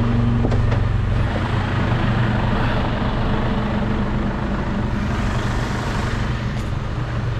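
Heavy truck's diesel engine running steadily under way, with road noise.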